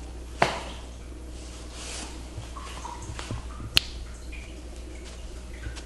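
Two sharp clicks, about half a second in and near four seconds, with a few softer taps and soft rustling between them, over a steady low hum, during a hands-on chiropractic adjustment.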